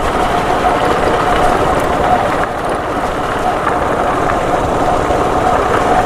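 Motorbike engine running steadily while riding over a rough dirt track, with a steady whine over a dense rumble and wind rushing across the microphone.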